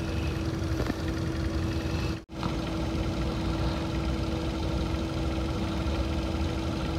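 Steady machine hum like an idling engine, with a constant low tone and rumble; it cuts out for an instant just over two seconds in.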